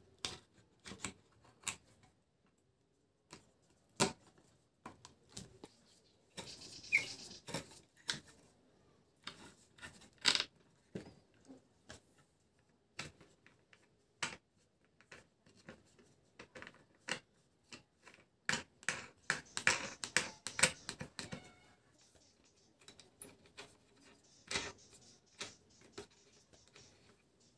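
Metal hinge fittings and pine boards of a wooden laptop stand being handled and adjusted by hand: scattered small clicks and knocks, with two quicker runs of clicking and scraping, about seven seconds in and again around twenty seconds in.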